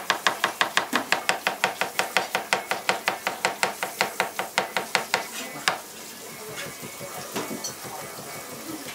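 Kitchen knife chopping green leaves on a white cutting board: fast, even chops at about six a second for some five seconds, ending on a harder stroke, then a few scattered light knocks of the knife and board.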